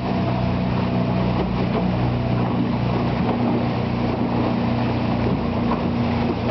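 Fishing boat's engine running steadily while underway: a constant low drone of even hum tones, with a steady rushing noise over it.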